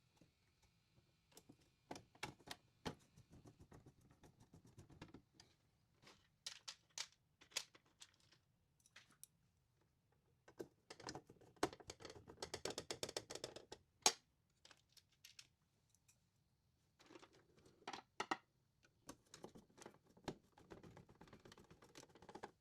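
Quiet, irregular clicks, taps and rustles of small parts and circuit boards being handled and fitted into a power-station chassis on a workbench. About halfway through there is a denser few seconds of clatter that ends in one sharp click.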